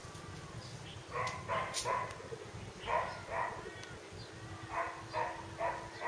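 A dog barking in short runs: three barks, then two, then four.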